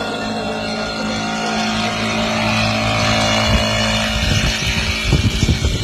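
A motor engine running steadily at a constant pitch. From about four seconds in, irregular low thumps and rumbling join it.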